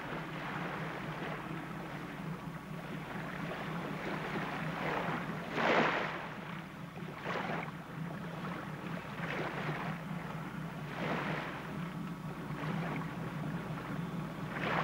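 Water splashing and lapping alongside a ship's hull in irregular swells every second or two, the loudest about six seconds in, over a steady low hum.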